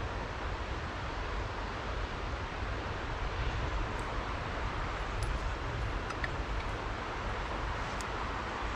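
Steady rushing of a shallow river, with a low rumble underneath and a few faint clicks.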